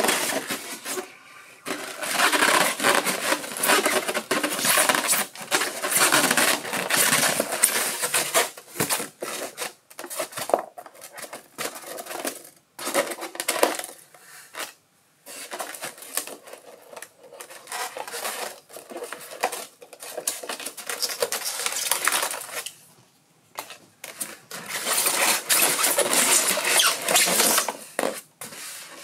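Polystyrene foam packaging squeaking and scraping as hands pull the model out of its moulded insert, in irregular stretches with a short pause near the end.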